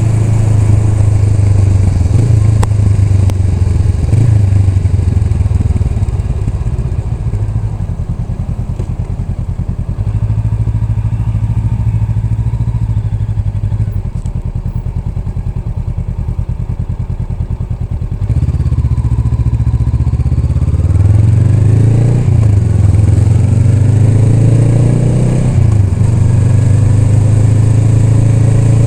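Honda Rebel 500's parallel-twin engine running under the rider, settling to a lower, quieter note for about ten seconds in the middle. In the last third it pulls harder, its pitch climbing and dropping back several times as the rider shifts up through the gears.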